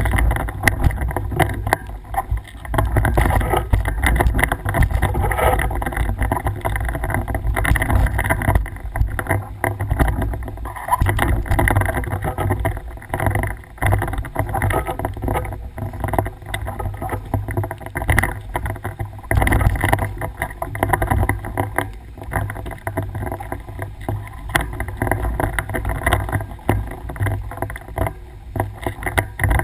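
Mountain bike riding over a rough trail, heard from a camera mounted on the bike or rider: steady low rumble from wind and motion on the microphone, with frequent knocks and rattles as the bike jolts over bumps.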